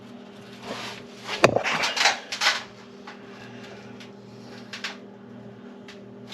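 Scattered light metallic clinks and clatters, most of them in a cluster about one and a half to two and a half seconds in, from tools or engine parts being handled, over a steady low hum.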